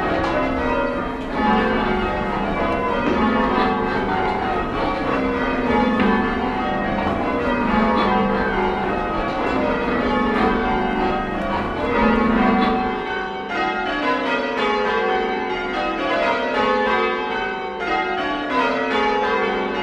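A ring of English church bells rung full circle by hand ropes, struck one after another in rows, each row stepping down from the highest bell to the lowest.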